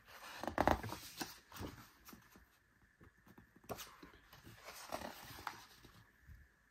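Thick, heavy photobook pages being turned by hand: a series of papery rustles and swishes, the loudest about half a second in.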